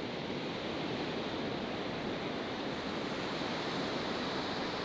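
Steady wash of ocean surf on a beach, with some wind.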